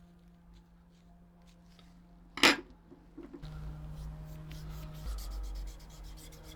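Hand work on small metal parts: one sharp knock about two and a half seconds in, then steady rubbing with many small clicks.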